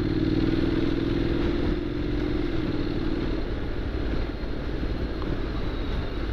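Honda NC750X's parallel-twin engine pulling the bike along, its steady note fading away about three and a half seconds in and leaving a rushing road and wind noise.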